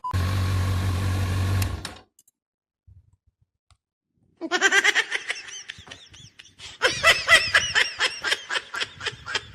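A steady hum with hiss for about two seconds that cuts off suddenly, then a pause, then a person laughing in repeated fits from about halfway through.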